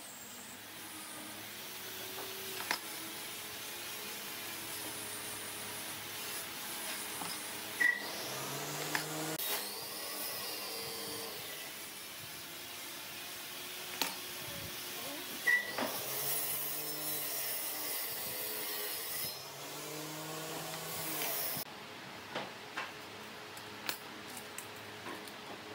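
A tool working wood with a steady rasping, scraping noise and a few sharp knocks. About four seconds before the end the rasping stops, leaving scattered light clicks and taps.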